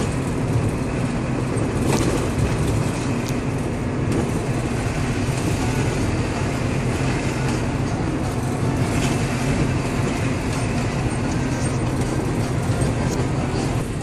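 Otokar Sultan midibus's diesel engine running under way, with a steady low drone and road noise heard from inside the cabin.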